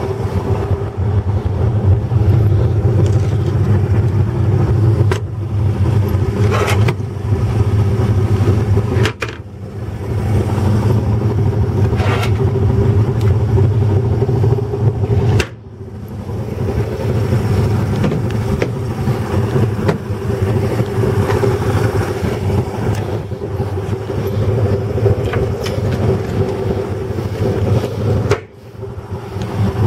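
An engine running steadily at a constant speed, a low hum that drops away briefly three times, with a few short knocks over it.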